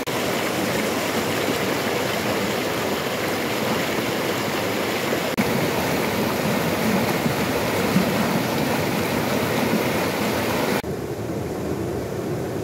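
Mountain river rushing over rocks and rapids, a steady loud roar of water. The sound changes abruptly about five seconds in and again near the end, where it becomes softer and duller.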